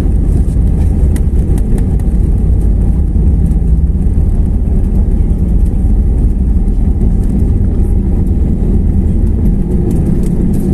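Airbus A320neo cabin sound during the takeoff roll: the Pratt & Whitney geared turbofan engines at takeoff thrust and the wheels rumbling on the runway make a loud, steady low roar.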